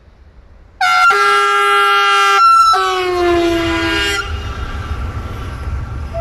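SBB double-deck electric passenger train sounding two long horn blasts, the second dropping in pitch as it passes, then the low rumble of the train running by.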